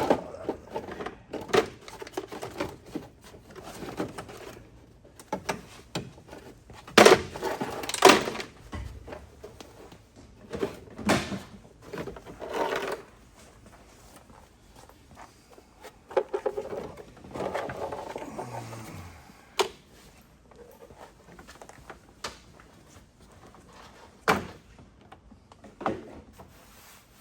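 Intermittent clunks, clicks and rattles of car parts and hand tools being handled, with louder stretches of rummaging about a quarter and about two thirds of the way through.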